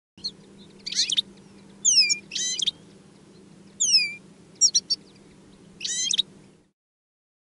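Small finches calling: about six bursts of sharp chirps and falling whistled notes, over a faint steady low hum that cuts off abruptly near the end.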